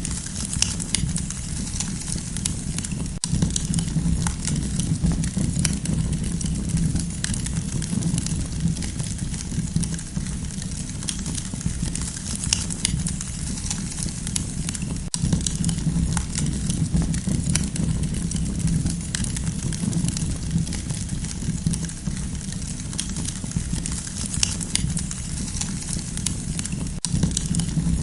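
Wood campfire burning and crackling, with many small sharp pops scattered over a steady low rumble.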